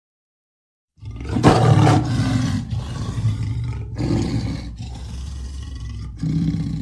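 Amur leopard vocalizing: a loud, deep call starts suddenly about a second in, loudest at first, then swells again twice over a steady low rumble.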